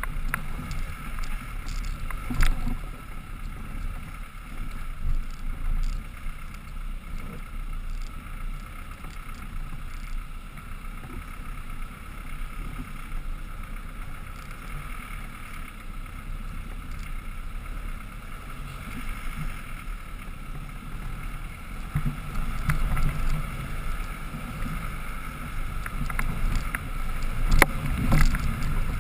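Land Rover Defender 110 engine running low and steady as the truck crawls up a rocky off-road trail, with wind on the microphone. A few sharp knocks from the vehicle come about two seconds in and again near the end, where the rumble grows louder.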